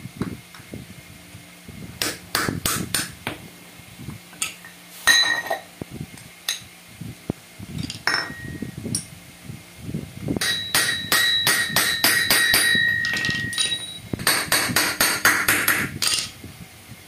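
Hammer tapping on the metal parts of a tractor starter motor: sharp metallic knocks with a ringing tone. A few separate strikes come in the first half, then two quick runs of rapid taps in the second half.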